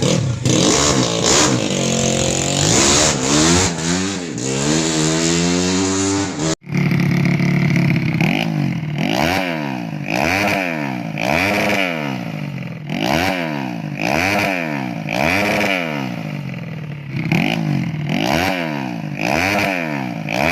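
Four-stroke single-cylinder engine of a Yamaha Jupiter underbone motorcycle, bored up to 130 cc for grasstrack racing, revved hard. First comes a long stretch at high revs with the pitch sliding down. Then, after an abrupt cut, the throttle is blipped over and over, the revs rising and falling about once a second.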